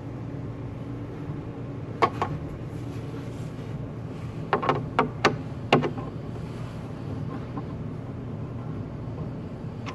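Several sharp knocks and clicks from a cabinet structure being handled: two about two seconds in, then a quick cluster around the middle. Under them runs a steady low hum.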